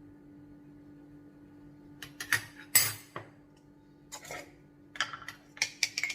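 Spoon clinking and knocking against a bowl, a string of sharp, separate clinks starting about two seconds in, the loudest just before three seconds. A faint steady hum runs underneath.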